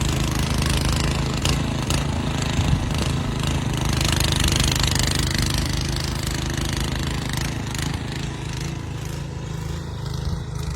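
An engine running steadily, with a broad hiss over it.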